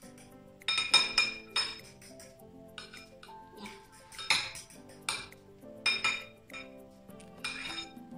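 A metal utensil beating eggs and oil in a glass mixing bowl, striking the bowl's side in irregular, ringing clinks about eight times, with soft background music underneath.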